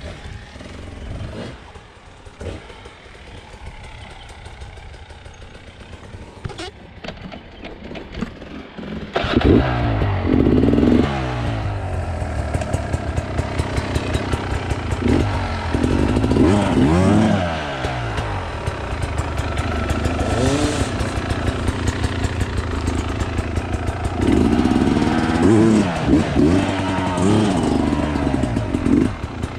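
Sherco enduro motorcycle engine ticking over quietly, then opened up sharply about nine seconds in and worked hard with repeated rising and falling bursts of revs as the bike climbs a steep rutted dirt track in hard enduro riding.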